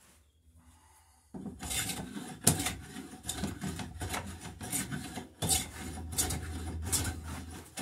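Small bench plane taking shavings off an oak transom knee, cutting with the grain, in quick repeated strokes about one every three-quarters of a second. The strokes start about a second and a half in.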